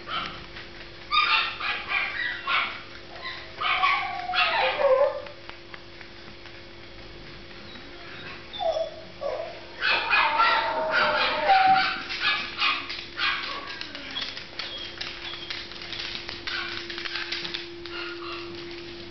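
Toy Fox Terrier barking and yipping in two bouts, the second starting about halfway through; some calls slide down in pitch, and the second bout tails off into a run of quick, fainter yips near the end.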